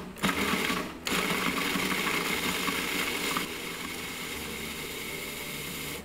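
Food processor motor running, grinding dry chocolate cookies into crumbs: a brief pulse, then steady running from about a second in, which gets a little quieter about halfway through.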